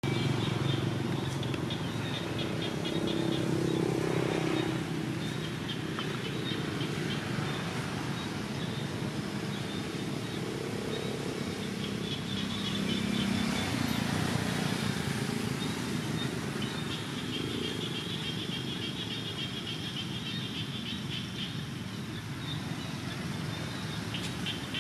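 Outdoor ambience: a motor vehicle's engine running, swelling about three seconds in and again near the middle, with a high, fast-pulsing chirr that comes and goes in the background.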